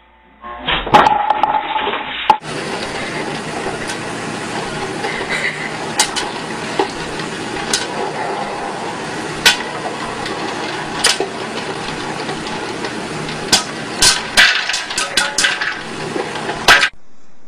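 Popcorn popper with a clear plastic dome popping corn: a steady sizzle with sharp pops of kernels bursting, few at first and coming thick and fast near the end.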